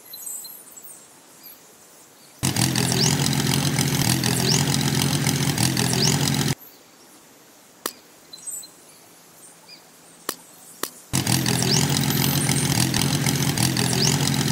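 A tractor engine running steadily in two stretches of about four seconds each, cutting in and out abruptly; faint bird chirps in the quiet gap between.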